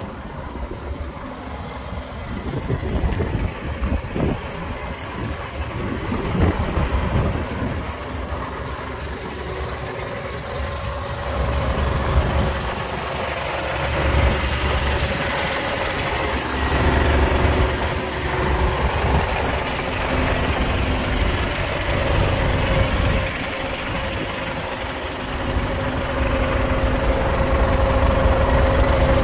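Renault Midlum 220 truck's diesel engine idling steadily, getting louder near the end.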